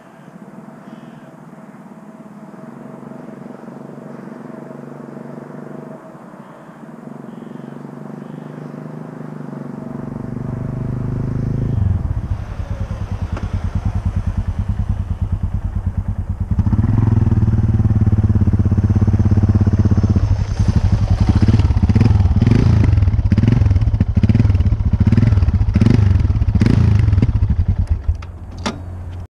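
Yamaha XT660X single-cylinder engine running through Leovince X3 aftermarket exhausts, growing louder over the first dozen seconds and louder again after about sixteen seconds. In the last third, a run of about nine quick throttle blips revs the engine, then it drops back near the end.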